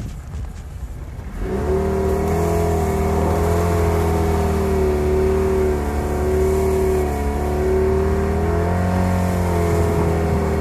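2010 Jeep Patriot's four-cylinder engine revving up about a second and a half in and held high and steady, with slight rises and dips, as its tires spin in hard-packed snow.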